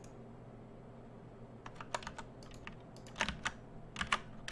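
Computer keyboard keys pressed in short, irregular clusters while working in 3D modeling software. The clicks start about halfway through and grow louder and more frequent near the end, over a faint steady hum.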